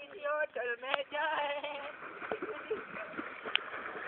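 Male voices calling out across the water, then water splashing and churning from about two seconds in as a swimmer thrashes at the surface.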